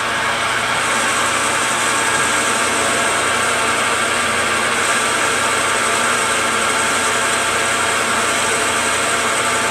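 Metal lathe running at 725 RPM with the automatic feed engaged, a carbide tool taking a dry cut on an aluminum pulley: a steady mechanical drone and whine with a hiss over it, leaving a smooth finish.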